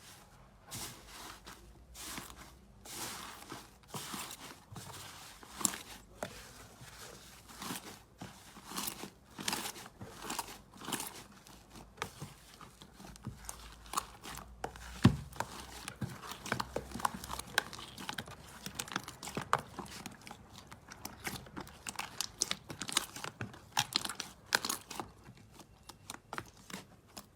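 Slime being squeezed and pressed by hand, giving a dense, irregular run of crackling, popping clicks.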